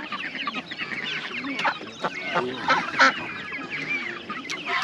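A group of chickens clucking and calling together, many short overlapping calls, with one sharper, louder call about three seconds in.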